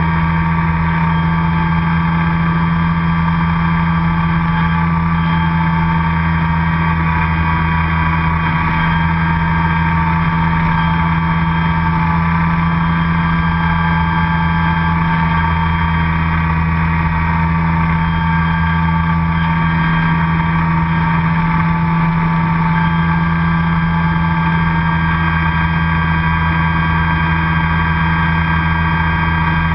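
Radio-controlled model airplane's motor and propeller running at a steady throttle: a loud, continuous drone with a higher whine that wavers slightly in pitch.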